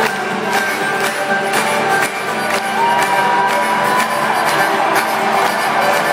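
A rock band playing live in an arena, drums keeping a steady beat of about two strokes a second under guitar, with the crowd shouting and cheering over the music.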